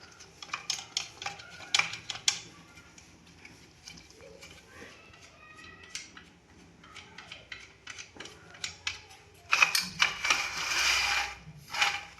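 Metal clinking and knocking as stand parts and tools are handled, in scattered short clicks, with a louder scraping rub about ten seconds in.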